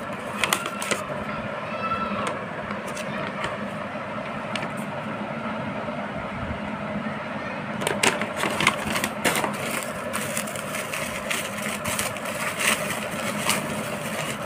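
Paper sheets and plastic bubble wrap rustling and crackling as a parcel is unpacked by hand, in irregular bursts that are busiest in the second half, over a steady background noise.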